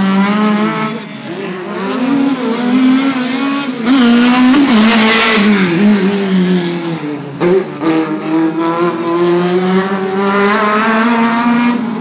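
A car engine running hard on a race circuit, its pitch wavering up and down as it is driven, with a loud burst of tyre squeal about four to six seconds in.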